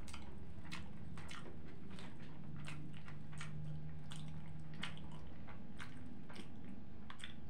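Close-up chewing of a shawarma: wet smacking and mouth clicks, a few a second. A low steady hum runs from about two and a half to five seconds in.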